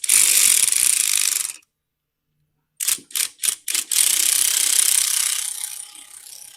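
Hand ratchet wrench clicking rapidly as it is worked back and forth. There is a long run of fast ratcheting, a short gap, four separate strokes, then another long run that fades out.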